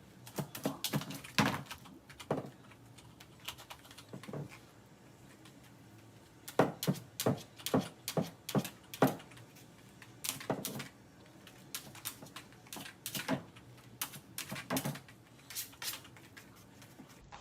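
A puppy making irregular clusters of sharp clicks and knocks as it vents its anger on something, with quiet stretches of a second or two between bursts.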